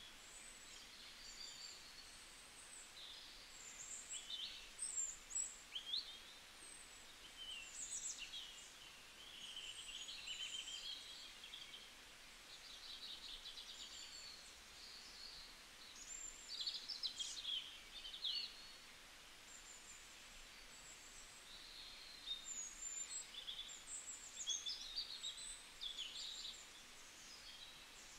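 Faint birdsong: small birds chirping and trilling over a soft steady hiss.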